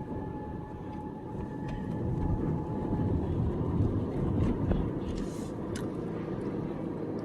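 Car driving, its engine and tyre road noise heard from inside the cabin as a steady low rumble that grows a little louder about two seconds in.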